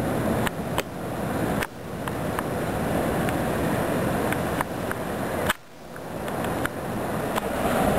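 Steady rush of wind across the microphone with ocean surf behind it, dropping away sharply twice for a moment.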